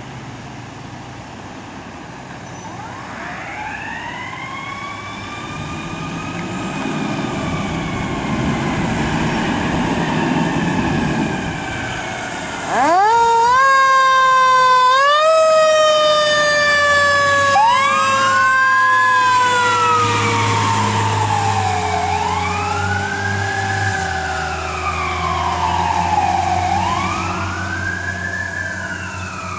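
Emergency-vehicle sirens. At first a distant siren wails faintly, rising and falling slowly, from the departing Chevy ambulance. About 13 s in, the Pierce rescue engine's siren comes in loud: it winds up sharply, then winds down slowly over many seconds, while a second siren wails up and down about every two to three seconds.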